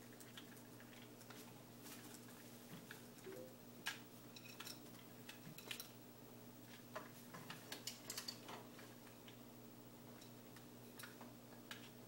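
Faint scattered clicks and taps from a macaw's beak and claws on a hanging wooden swing perch as it moves about, over a faint steady hum.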